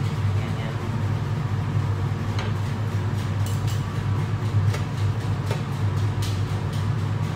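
Commercial kitchen extractor hood fan running with a steady low drone, with a few light knocks and clicks from food preparation at the counter.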